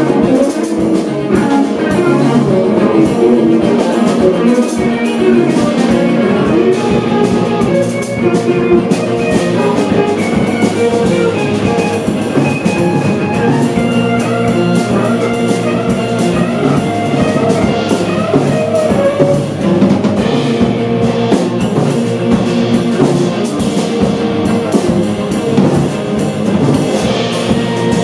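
Live jazz quartet playing: tenor saxophone, cello, electric guitar and drum kit together, with sustained melodic lines over steady drumming.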